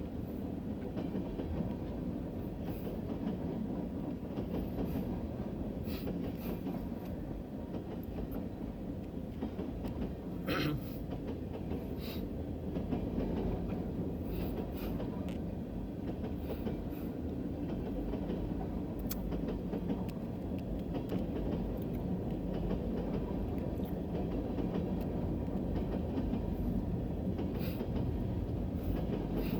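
A long freight train of boxcars rolling through a crossing: a steady rumble with the clickety-clack of wheels over the rail joints, and one short, sharper sound about ten seconds in.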